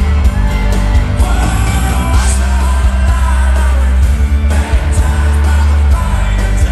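Live country band playing loud with electric guitars and heavy booming bass, a man singing lead into a microphone.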